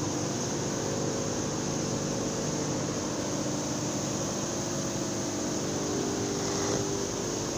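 Processing-mill machinery running steadily: a continuous hum with several steady tones under an even rushing noise.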